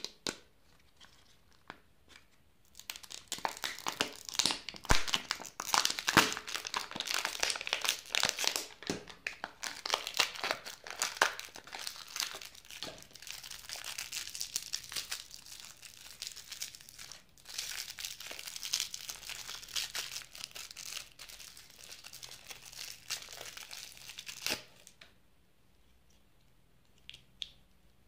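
Foil wrapper of a Wonder Ball surprise chocolate ball crinkling and tearing as it is peeled off by hand, a dense crackle starting a couple of seconds in and stopping about three seconds before the end. A few faint clicks follow near the end as the small plastic toy parts are handled.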